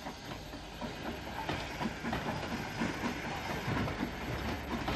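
Steam-hauled passenger train rolling past, the coach wheels clattering over the rail joints with a steady hiss of steam.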